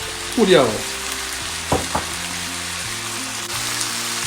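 Chicken pieces and onions sizzling as they fry in a pan with yogurt and spices, with two short knocks a little under halfway through.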